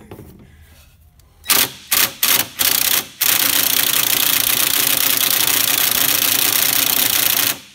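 Cordless impact wrench hammering on a seized lawn mower blade bolt: four short bursts, then a continuous run of about four seconds that cuts off near the end. The bolt is stuck and not turning.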